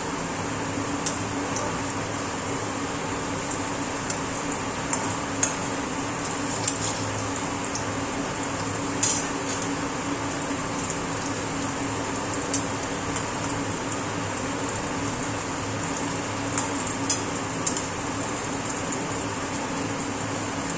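Brinjal slices frying in oil in a metal kadai, a steady sizzle, with a metal spatula clinking and scraping against the pan about ten times as the slices are turned; the loudest clink comes about nine seconds in.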